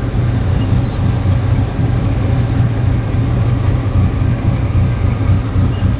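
Boat engine running steadily under way, a continuous low drone.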